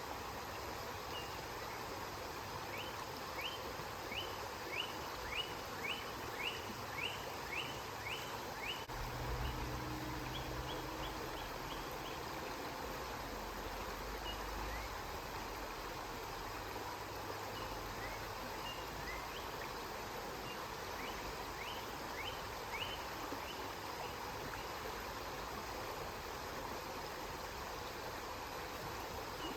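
Steady rush of flowing river water. Over it a bird repeats short rising chirps in two quick runs, and a low rumble comes in for a few seconds about nine seconds in.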